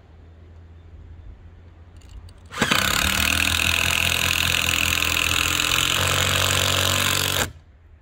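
A power tool runs at a steady speed in one burst of about five seconds, starting and stopping abruptly.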